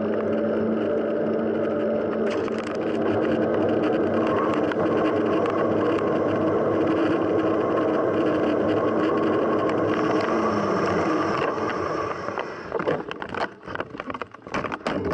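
Steady rushing noise of a mountain bike ride, wind and tyre noise on the camera, with a low hum running under it. Near the end it breaks up into a run of clicks and knocks.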